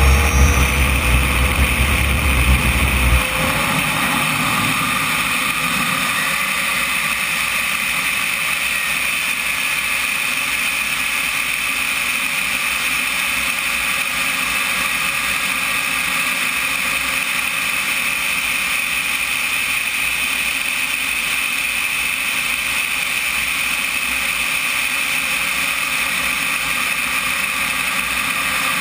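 RC model jet's turbine running steadily in flight, heard from a camera mounted on the airframe, a steady whine with air rushing over the camera housing. A heavy low wind rumble drops away about three seconds in.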